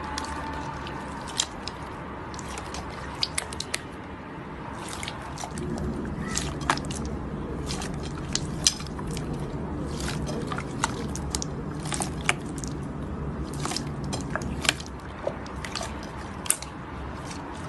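Slime being squished and worked by hand, with many scattered sharp sticky clicks and small pops.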